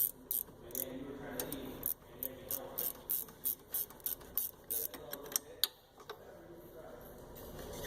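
Hand ratchet clicking in quick back-and-forth strokes, about three clicks a second, as it loosens a 14mm rear brake caliper bolt. The clicking stops a little past halfway.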